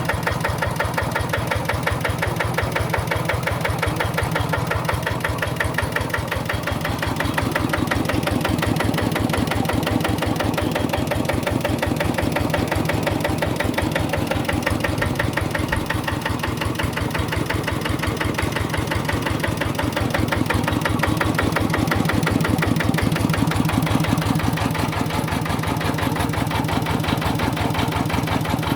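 Kubota RD85 2S single-cylinder diesel engine of a hand tractor running steadily with a rapid, even chugging beat, its level swelling slightly a couple of times.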